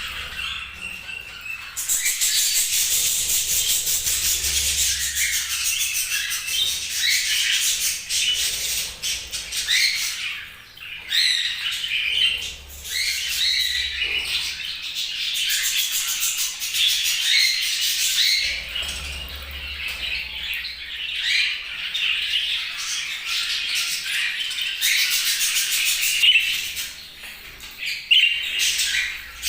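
Budgerigars chirping and chattering in a continuous stream of quick, high chirps and squawks, with short lulls twice.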